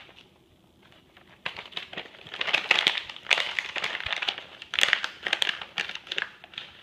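Crinkly bag of cat treats being handled and shaken, in bursts of crackling rustles and clicks that start about a second and a half in.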